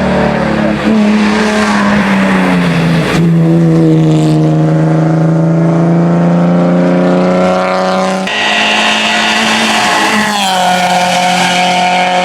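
Race car engine running hard at high revs on a hillclimb. Its note drops sharply about three seconds in, then climbs slowly as the car accelerates, and shifts again a couple of times near the end.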